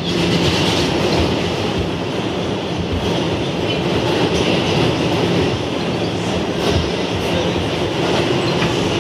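Kawasaki R211A subway car running through the tunnel, heard from inside the car: a steady rumble of wheels on rail with a low hum and occasional clicks over the rail joints.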